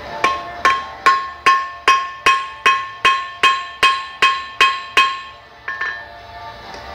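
Hand hammer striking hot aluminium bar stock on metal to flatten it into an oval, about thirteen steady blows at about two and a half a second, each ringing. The blows stop about five seconds in, followed by a couple of lighter taps.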